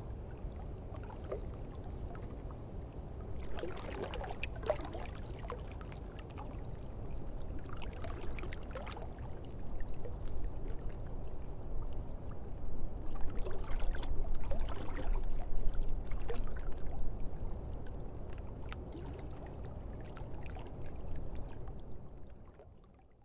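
Water lapping and sloshing over a low rumble, with irregular splashy spatters that grow louder in the middle, then fade out near the end.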